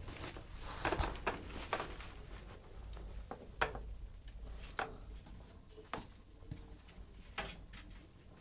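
Kittens' paws and claws tapping and scraping on a metal tray and tiled floor as they play: a scattered series of short, light scratchy clicks, busiest in the first two seconds.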